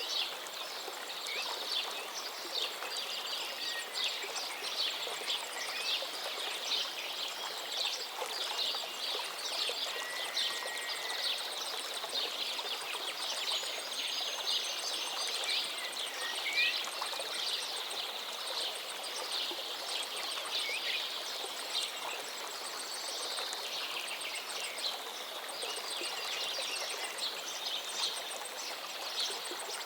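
River water flowing and babbling steadily, with a few brief bird chirps around the middle.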